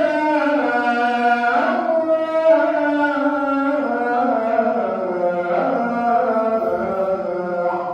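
A man chanting the Islamic call to prayer (adhan) in the Tunisian melodic modes. He holds one long ornamented phrase whose pitch slides and turns, and it ends near the end.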